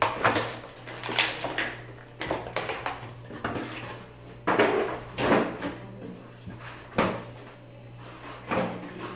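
Stiff clear plastic blister packaging of a toy set being handled and pressed: irregular crackles and clacks of plastic, with a few sharper knocks scattered through, over a faint steady low hum.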